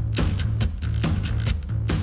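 Background music with deep bass notes and a steady drum beat, about two hits a second.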